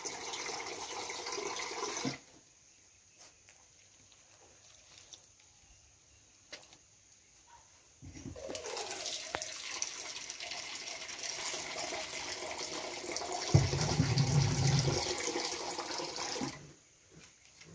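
Water running in two stretches: about two seconds at the start, then after a quiet gap again for about eight seconds, with a brief low rumble in the second stretch. It is water for dampening a chicken-feed mash of rice polish so it can be squeezed into balls.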